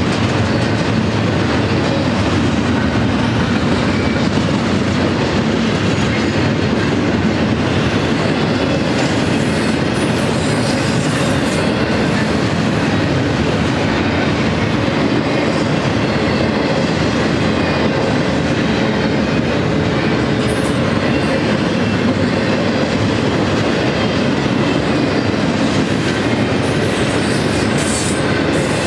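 Double-stack intermodal train's loaded well cars rolling past: steady noise of steel wheels running on rail, with no lulls.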